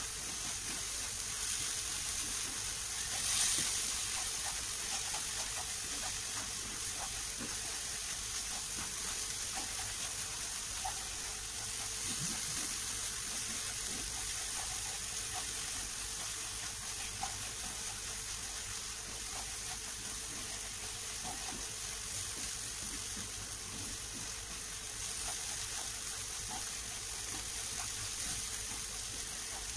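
Ground spice paste sizzling in hot oil in a wok, sautéed and stirred with a spatula that scrapes lightly against the pan. The sizzle is steady, with a brief louder swell about three seconds in.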